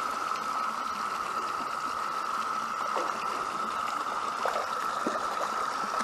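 Shallow woodland stream running over rocks: a steady rush of water.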